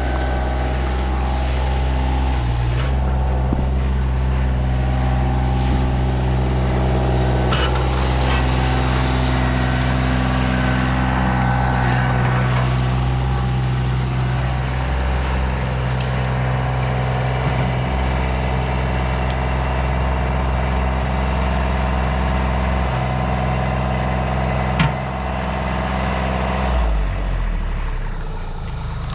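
Mini skid steer's engine running steadily at working speed, with a single sharp knock about 25 seconds in; near the end the engine throttles down.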